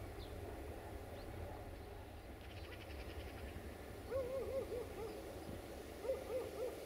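An animal calling in two quick runs of short hooting notes, about four notes each, over a steady low rumble.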